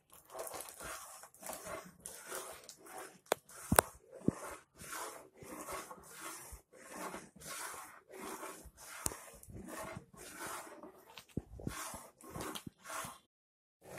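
A metal spoon stirring hot milk in a steel pot as vinegar is added to curdle it: a rhythmic swishing, about one or two strokes a second, with a few sharp clinks of the spoon against the pot. The stirring breaks off briefly near the end.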